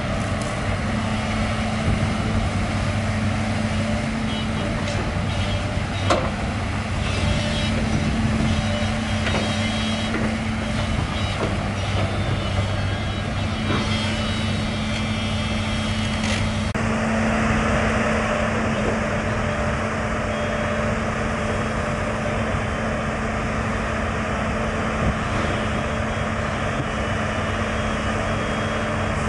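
Liugong 922D excavator's diesel engine running steadily as it works, with a few sharp clanks; the sound's character changes abruptly partway through.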